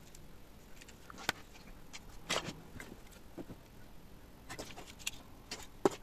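Scattered light clicks and clatter of a small plastic quick-release bar clamp and parts being handled and set down on a hard floor, with a sharper click just before the end.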